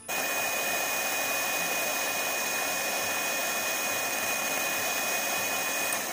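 Electric hand mixer running, its twin beaters whisking whipping cream powder and chilled milk. The motor gives a steady whirring noise with a high whine. It starts suddenly and winds down with a falling pitch at the very end.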